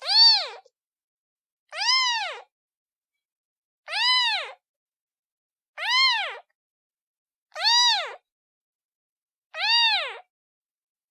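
Kitten meowing: six calling meows about two seconds apart, each rising then falling in pitch.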